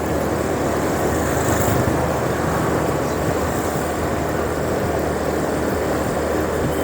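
Motorbike riding along, its engine running steadily under a constant rush of wind noise on the microphone.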